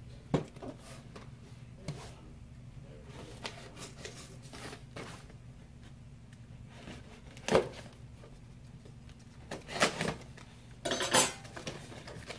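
Cardboard shipping box being handled and opened on a table: scattered knocks and thumps as it is set down and turned, then a short noisy burst, as of tape or cardboard being torn, about a second before the end.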